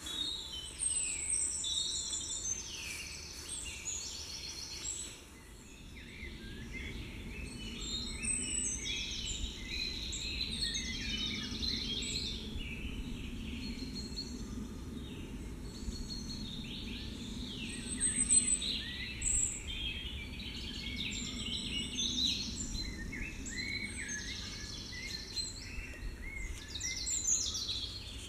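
Woodland birdsong: several songbirds singing with many short chirps and trills, over a low steady background rumble.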